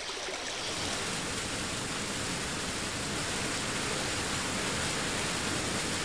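Rushing meltwater in a thaw, a steady rush of falling and running water that swells over the first second and then holds.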